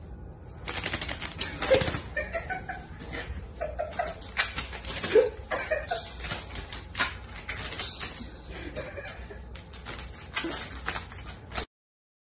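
Irregular clicking and scuffing of a cat's paws on a tile floor as it walks with paper towels under its feet, with soft laughter mixed in. It stops abruptly near the end.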